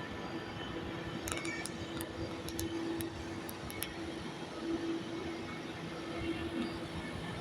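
Daikin air conditioner outdoor unit running: a steady fan rush with a steady hum, and a few faint clicks in the first half.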